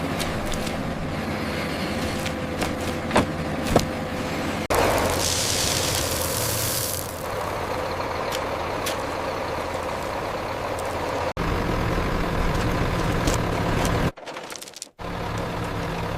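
Heavy truck engine running with a steady low rumble, with two short clicks around three to four seconds in and a loud air-brake hiss about five seconds in lasting a couple of seconds. The sound breaks off abruptly several times, as at cuts between shots.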